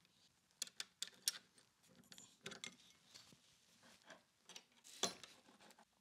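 Faint metal clicks and small rattles as the steel plates of a concealed door closer are levered apart with a pry bar and its chain shifts, a few sharp clicks early and a louder cluster about five seconds in.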